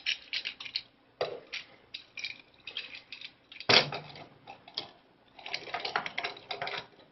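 Plastic parts of a Transformers Robots in Disguise Warrior Class Ratchet action figure clicking and snapping as its legs are unpegged and panels flipped during transformation: irregular runs of small clicks, with one louder snap a little under four seconds in.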